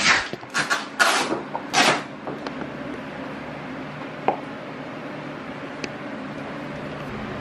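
A few short swishing scuffs in the first two seconds, then a steady low hum with a single small click about four seconds in.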